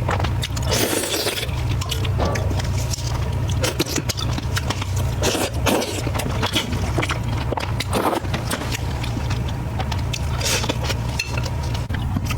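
Close-miked eating sounds: chewing, with many short clicks and a few longer scraping or crunching bursts, over a steady low hum.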